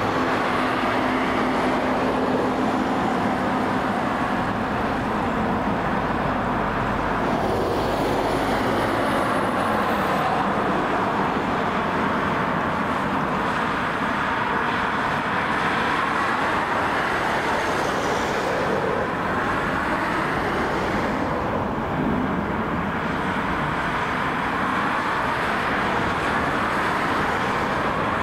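Twin-engine widebody jet airliner on final approach to landing: a steady rushing jet noise whose tone sweeps slowly up and down as the aircraft comes nearer.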